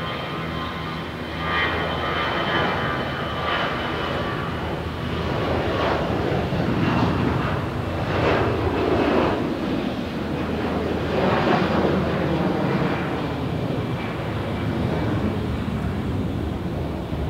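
Jet airliner taking off: engine noise with a steady high whine above it, getting louder about a second and a half in and surging unevenly.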